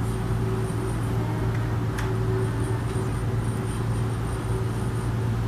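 Steady low drone of a harbour ferry's engine, heard on board, with one brief click about two seconds in.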